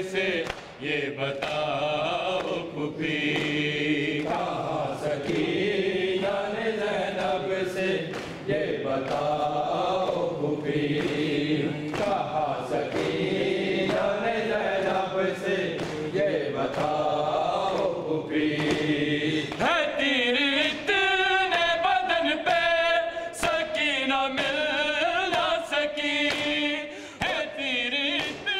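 Men's voices chanting an Urdu noha, a Shia lament, together and unaccompanied, with a melody that rises and falls. About twenty seconds in, the chant moves higher.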